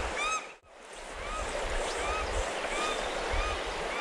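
Shallow stream running over stones, with a short high chirp repeating about twice a second over it. Everything cuts out briefly about half a second in, then fades back up.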